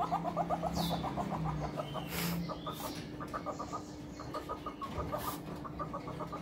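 Rapid clucking chatter, many short pulses a second coming in runs, with a few sharp high chirps over a steady low hum.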